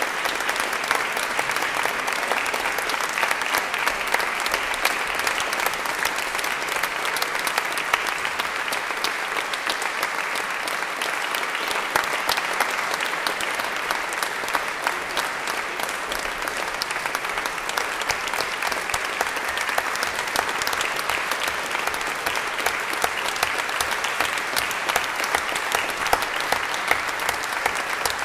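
Concert audience applauding steadily, a dense clapping that neither builds nor fades.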